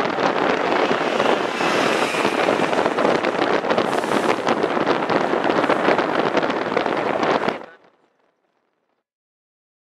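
Wind rushing and buffeting on the microphone, with road noise, filmed out of a moving vehicle's side window. It fades out quickly about three-quarters of the way through into silence.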